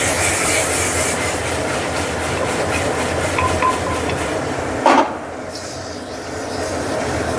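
Mutton pieces sizzling and frying in an aluminium pressure cooker as the pot is shaken to toss the meat. There is a short knock about five seconds in.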